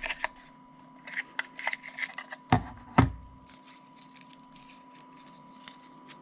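Small plastic clicks and rustles of a label roll being taken out of a pocket thermal label printer, with two sharp knocks about half a second apart in the middle.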